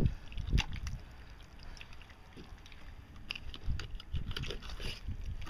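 Wet handling of fish innards: hands pulling guts and fat out of a split-open buffalo fish, giving a few soft squelches and clicks over a low rumble.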